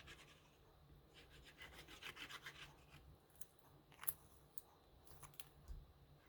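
Faint handling of paper cardstock: a run of soft rubbing strokes over the first few seconds, then a few light taps and clicks.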